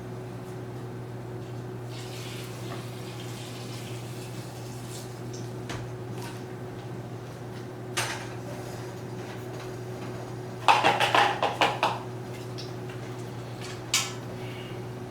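Kitchen pots and utensils clattering: a single knock, then a quick run of about half a dozen clanks, then one more knock, over a steady low hum.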